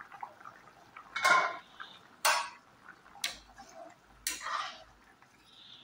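Metal ladle knocking and scraping against the side of a stainless steel pan while stirring a boiling curry: four clanks about a second apart.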